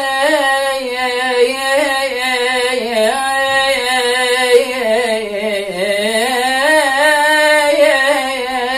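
A man singing solo, drawing out one long vowel in an ornamented Iraqi melisma, the pitch wavering and turning, dipping low just before the middle and climbing again.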